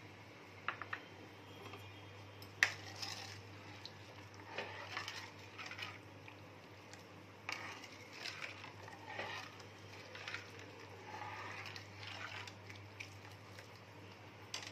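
Steel spoon clinking and scraping against a kadhai while thickening tamarind chutney is stirred on the boil, in scattered knocks and scrapes; a sharp clink about two and a half seconds in is the loudest.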